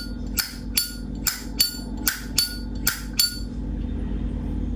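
Vintage Zippo lighter's lid flipped open and snapped shut again and again: about eight sharp, ringing metallic clinks in quick pairs, stopping about three seconds in. The clink is the lighter's original, unrepaired sound.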